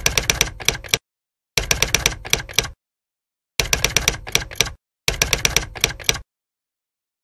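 Typewriter sound effect: four bursts of rapid key clacks, each about a second long, separated by short silent gaps.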